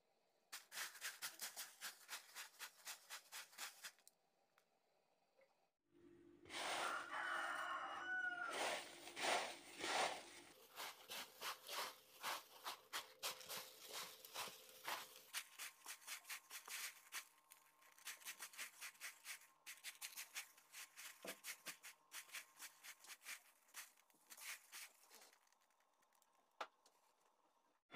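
An animal call with a gliding pitch, about six to ten seconds in, over runs of soft, quick clicks at about four a second that die away near the end.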